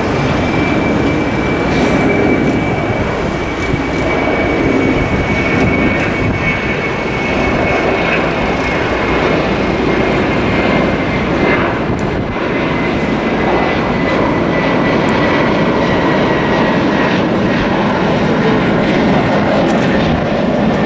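Jet engines of a China Airlines Airbus A330 at takeoff thrust during the climb-out, a steady loud roar with a high whine that slowly falls in pitch as the aircraft climbs away.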